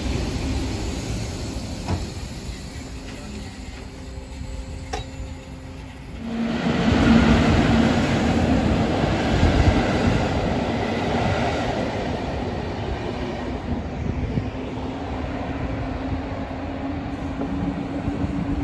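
Suburban train running on the rails: a low rumble with a steady hum. About six seconds in the noise swells suddenly and stays loud.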